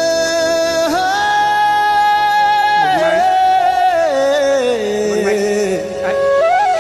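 Background song: a solo voice sings long held notes that slide down in pitch and step between notes, with a few quicker runs near the end.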